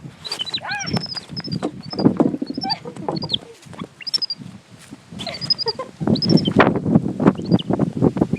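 Young capuchin monkey giving repeated short, high chirps and a falling squeal, over rustling, crunching footsteps on the ground outside. The crunching grows louder near the end.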